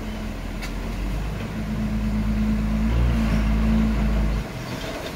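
Hyundai heavy dump truck's diesel engine running with a low, steady hum as the loaded truck reverses in. It grows louder as the truck nears, then drops off suddenly about four and a half seconds in.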